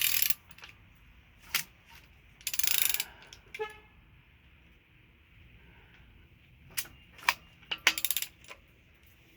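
Socket ratchet clicking in several short bursts as the engine's crankshaft is turned over by hand, with one ringing metal clink a little over a third of the way in.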